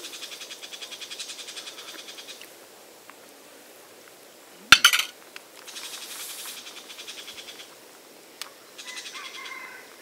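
A calling animal repeats a fast, high-pitched pulsed trill in three bursts. About halfway through there is one loud, sharp metal clink, a metal spoon set down on an aluminium camping pan lid.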